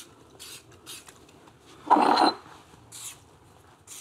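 Short hisses of an aerosol Loctite spray can squirted in quick puffs, about two a second. About two seconds in comes a single louder, longer burst of noise.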